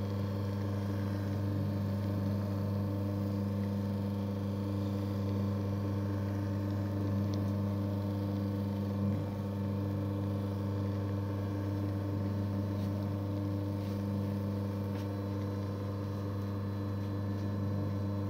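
Electric home mochi maker running with a steady motor hum as its paddle kneads a ball of steamed glutinous rice into mochi dough. A small bump sounds about nine seconds in.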